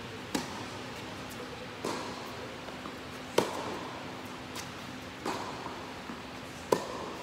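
Tennis ball struck by rackets in a rally, starting with a serve: five sharp pops about a second and a half apart. The loud near hits alternate with fainter far ones, and each rings briefly in the indoor hall.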